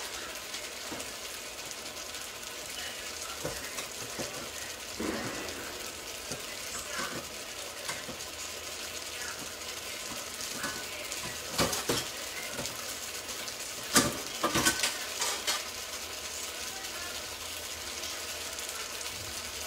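Gurnard and cuttlefish in tomato sauce simmering in a frying pan, a steady sizzling hiss. A few sharp knocks come about halfway through and a louder cluster of them a few seconds later.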